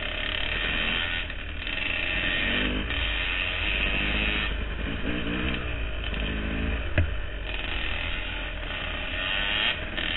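Dirt bike engine running along a trail, its pitch rising and falling with the throttle, under rushing wind noise on the onboard microphone. A single sharp knock comes about seven seconds in.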